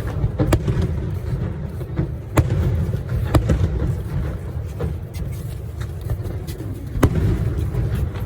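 Fireworks going off: sharp bangs at uneven intervals, several strong ones and some fainter, over a steady low rumble.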